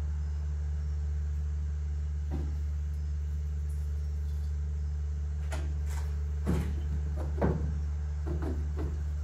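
Light knocks and clunks of PVC pipe and fittings being handled and pushed together while gluing joints, four or five of them in the second half, over a steady low hum.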